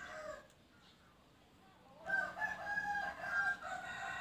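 A rooster crowing once: one long, drawn-out crow starting about halfway in.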